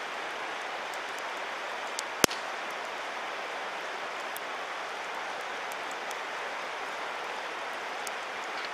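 Wood campfire crackling, with scattered small pops and one loud sharp pop about two seconds in, over a steady rushing noise.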